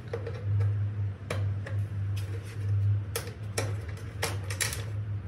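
Sharp plastic clicks and knocks as a sport bike's fairing panels and their fasteners are worked loose by hand and with a screwdriver, over a steady low hum.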